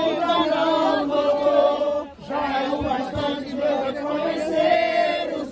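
A crowd of people singing together in unison, many voices holding long sung notes. The singing breaks briefly about two seconds in, between phrases.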